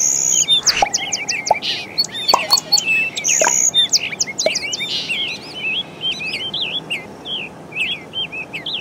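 Many birds chirping and calling rapidly over one another, quick high chirps that rise and fall, busiest in the first half.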